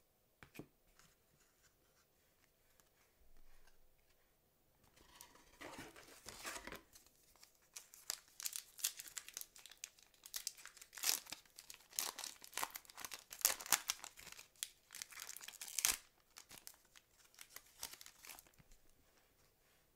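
Foil wrapper of a 2006 Fleer Ultra football card pack being torn open and crinkled by hand. It starts as a rustle about five seconds in and becomes a dense run of sharp crinkling and tearing that is loudest just before it stops, about sixteen seconds in.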